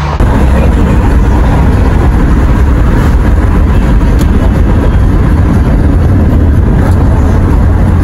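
Loud wind and road noise of a car driving at speed, the wind buffeting the microphone in a steady low rumble.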